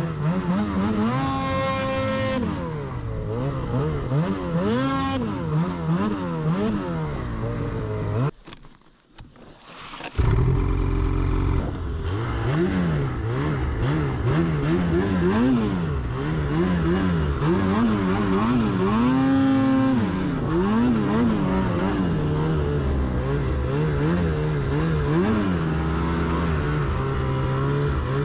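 Snowmobile engine revving up and down over and over as it is ridden through deep powder snow, the throttle constantly worked. Near the middle the sound drops out almost completely for about two seconds, then comes back at full level.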